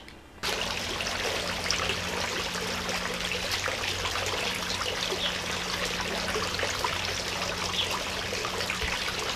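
Water trickling steadily into a garden fish pond, starting about half a second in, with a faint low hum underneath.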